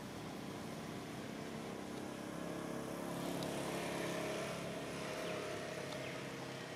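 An engine droning steadily in the background, growing louder around the middle and then fading again, like a motor passing by.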